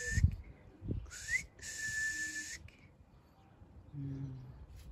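A person whistling to call a dog: a quick upward swoop that levels off into one held, breathy note for about a second. It is preceded by a low thump at the very start.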